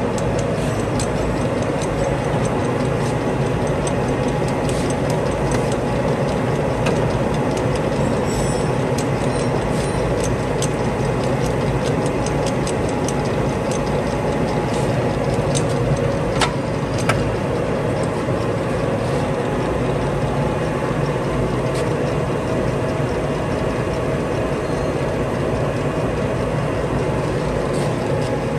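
Warner & Swasey 5A saddle turret lathe running under power: a steady gear-drive hum with scattered light ticks. Two sharper clicks come a little past the middle as the apron levers are worked.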